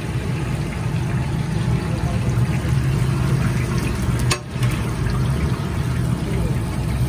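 Chapli kababs deep-frying in a pool of oil on a large flat tawa: the oil bubbles and sizzles steadily over a steady low hum. The sound briefly drops out about four seconds in.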